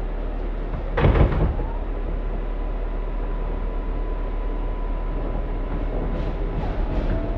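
An R188 subway train standing at the platform with its doors open, its onboard equipment giving a steady hum. There is a loud clank about a second in, then a steady high whine that holds for about five seconds.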